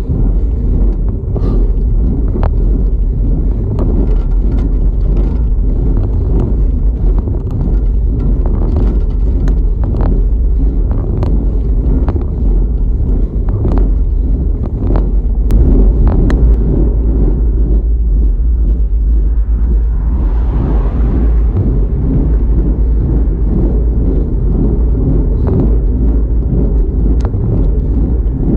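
Wind buffeting a bike-mounted camera's microphone while riding at speed: a loud, steady low rumble mixed with tyre and road noise, broken by scattered sharp clicks from bumps in the road. About two-thirds of the way through, a brief hiss swells and fades.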